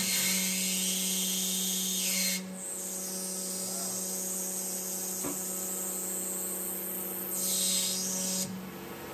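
A CNC mill spindle runs with a steady whine while a 1/8-inch twist drill grinds into hardened high-carbon steel, giving a high hissing screech for the first two seconds or so and again near the end. The drill is rubbing and overheating rather than cutting cleanly; the machinist says he cooked the new drill because the steel is harder than expected.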